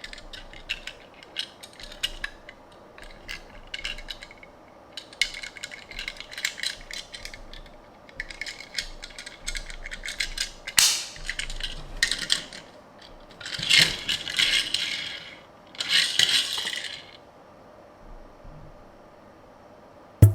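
Small die-cast toy car and its packaging being handled: a run of quick light clicks and rattles, then two longer scraping rustles near the end.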